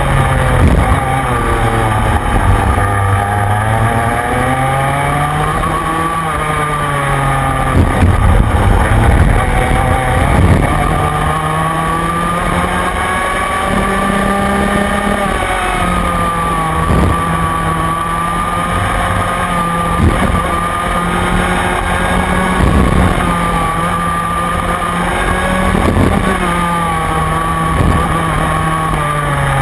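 Rotax Mini Max two-stroke kart engine heard onboard at racing speed, its pitch rising on the straights and dropping back into the corners every few seconds.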